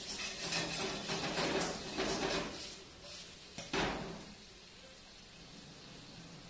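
Metal spatula scraping and clanking against a wok while stir-frying, a quick run of knocks for the first couple of seconds, then one sharp knock about four seconds in before it goes quieter.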